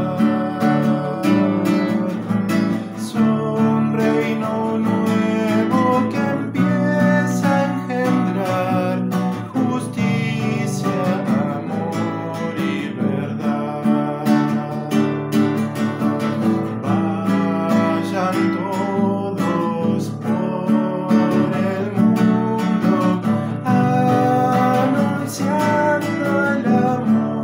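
A man singing while strumming chords on a classical acoustic guitar.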